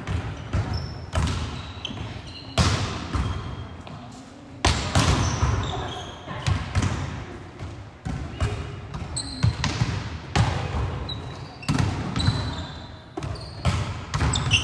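Volleyball being struck again and again in a large sports hall: sharp slaps of the ball off players' forearms and hands, about one every second and a half, each ringing on in the hall's echo.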